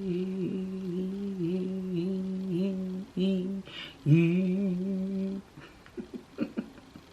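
A person humming a tune in a low voice, holding long notes with small dips in pitch, breaking off briefly twice and stopping about five seconds in. A few faint taps follow.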